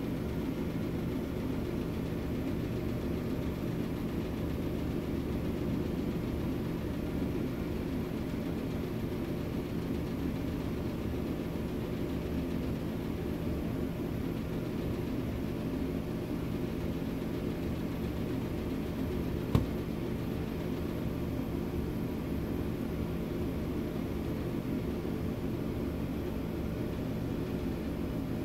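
A steady low mechanical hum with a few constant low tones, and one sharp click about twenty seconds in.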